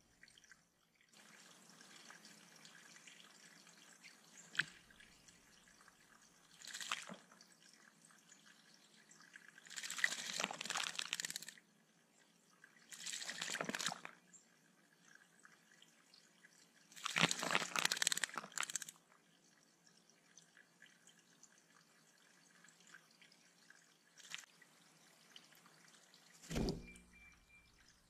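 Bluebird bathing in a shallow pond, flapping its wings in the water: several bouts of splashing, the longest about two seconds, over a steady trickle of flowing water.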